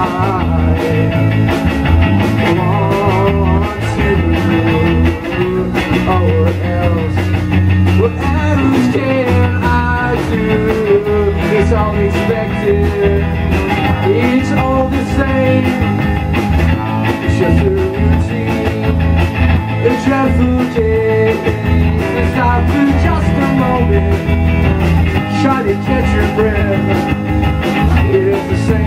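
Live rock band playing: electric guitar, bass guitar and a drum kit with cymbals, with a young man singing lead into the microphone.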